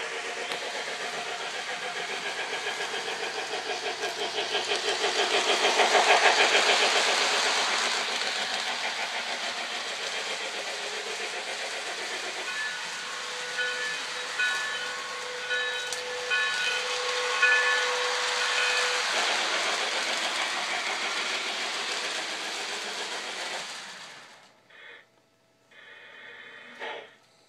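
Lionel toy steam locomotive's electronic sound system giving a steady hissing chuff that gets louder as the train passes close, about six seconds in. Later a repeating ringing tone, the locomotive's bell, sounds for several seconds, and the train sound stops suddenly about 24 seconds in.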